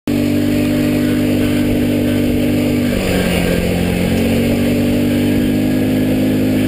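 Hytrack HY-920 buggy's 450 cc engine running under way on a dirt track, heard from on board. The engine note dips about three seconds in and then climbs back up.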